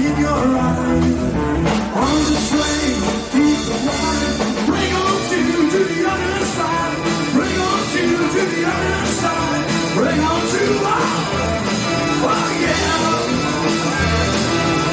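Live rock band playing with drums, bass guitar, lead guitar and keyboards, in a passage without transcribed vocals.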